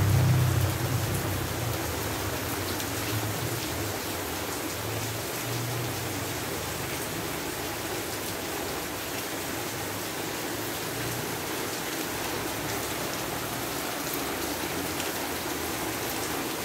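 Steady, gentle rain falling on roofs and a garden, an even hiss with no breaks. A low rumble fades out in the first couple of seconds.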